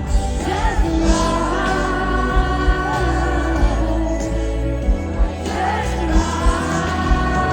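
Live band performance with a female lead voice singing long, wavering held notes over a slow song with heavy bass.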